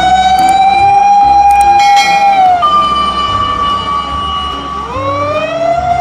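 Japanese fire engine's siren wailing: a long held tone that drops about two and a half seconds in, a higher tone held after it, then a rising sweep near the end, over a low rumble.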